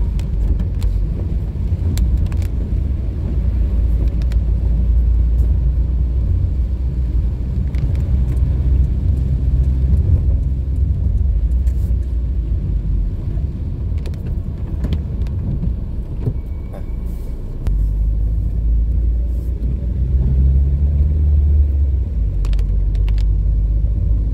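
Car interior noise while driving on a rain-soaked road: a steady low rumble of engine and tyres on wet asphalt, with scattered faint ticks. The rumble dips briefly about two-thirds of the way through, then picks up again.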